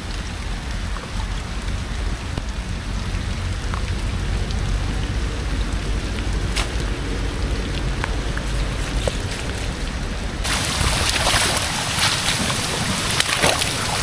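Heavy rain pouring down, a steady hiss over a low rumble. About ten seconds in the rain gets much heavier and the hiss turns louder and brighter.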